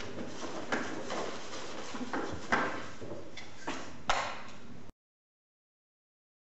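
Cardboard and paper props handled on a desk: a handful of sharp knocks and scrapes with rustling, the last and loudest about four seconds in. The sound then cuts out to dead silence about five seconds in.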